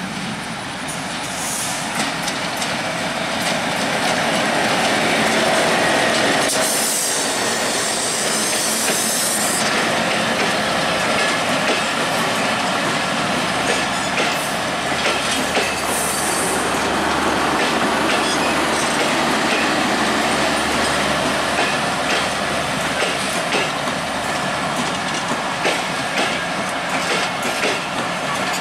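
Express passenger train coaches rolling past on broad-gauge track with a steady rumble, the wheels clacking over rail joints. The wheels give a brief high screech about seven seconds in and again about sixteen seconds in.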